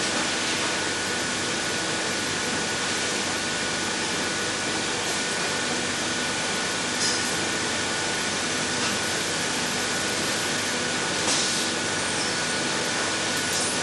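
A steady, even hiss with a faint high whine held under it.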